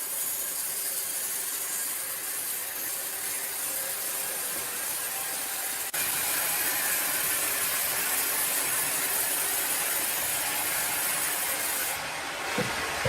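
Steady hissing machine noise. It breaks off abruptly about six seconds in and resumes slightly louder, then changes character near the end.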